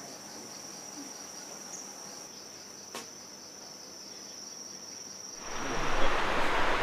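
An insect's steady, high-pitched trill with a fine even pulse, and a single click about three seconds in. Near the end a louder rushing noise comes in and covers it.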